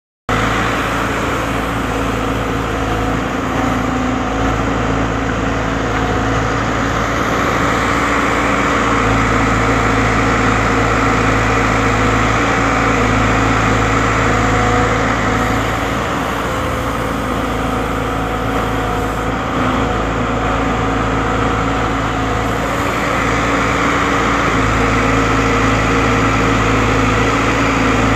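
Heavy diesel engine of earth-moving machinery running steadily, a constant low drone with little change in pitch.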